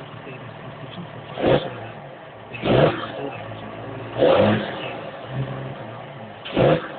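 Case MX100 tractor engine running steadily, heard from inside the cab. Four sudden loud bursts of noise, each under half a second, come a second or two apart over the steady drone.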